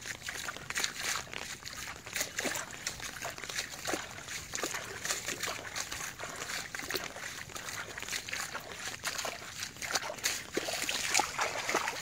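A dog wading through shallow floodwater, the water sloshing and trickling around its legs with each step. Near the end the splashing gets louder and quicker as it starts to run.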